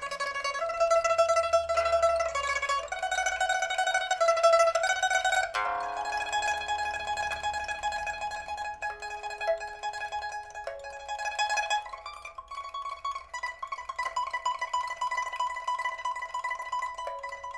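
A pipa (Chinese lute) playing a melody of held notes that are rapidly repeated, with a sharp strummed chord about five and a half seconds in. The instrument is a 1992 Man Ruixing pipa of aged Dalbergia oliveri wood with an ivory fittings, test-played just after its soundboard and frets were replaced; its first string is steel and the other three are copper.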